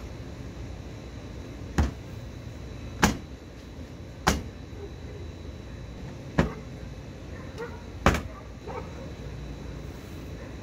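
Plastic clips of a Toyota Tacoma's lower bumper valance being pressed and snapped into place by hand: five sharp snapping knocks, a second or two apart.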